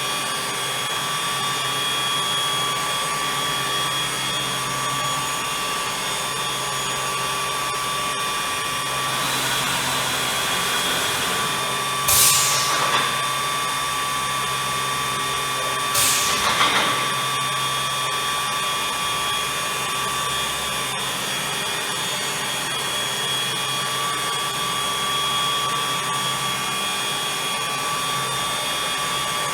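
Bacci FC8CNC eight-head CNC woodworking contour profiler running: a steady mechanical drone with whining tones held at one pitch. Two short, louder rushes of noise stand out about twelve and sixteen seconds in.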